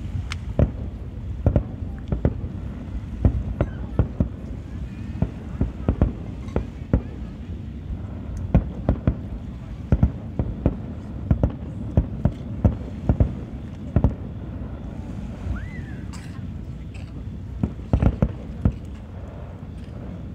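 Aerial fireworks shells bursting in a rapid, irregular string of sharp bangs over a continuous low rumble. A lull of a few seconds comes near the end, then a last cluster of bangs.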